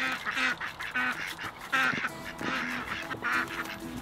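Domestic ducks quacking over and over, short nasal calls about two a second.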